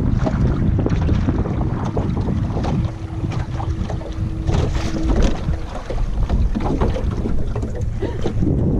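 Wind buffeting the microphone of a head-mounted action camera on a small boat on choppy water, with scattered small knocks and slaps throughout.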